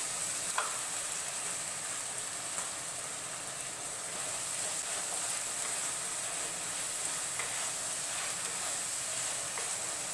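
Sliced onions, green chillies, garlic, ginger and curry leaves sizzling steadily in hot coconut oil in a clay pot, stirred with a wooden spatula. There is a brief sharp click about half a second in.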